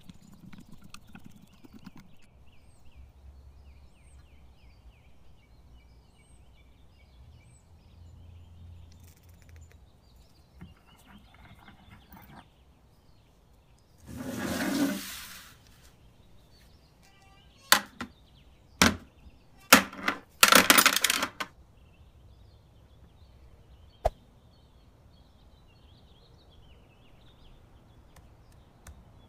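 Metal parts of an antique hand vise being handled: a rough rubbing rattle lasting about a second and a half, then a few sharp metallic knocks and a short clattering run, and one last sharp click a few seconds later. Between these, only faint tapping and room tone.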